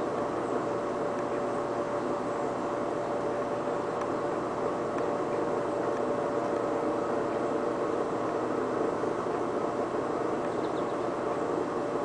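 An air conditioner and an electric fan running together: a steady whirring hum with one steady tone in it, unchanging throughout.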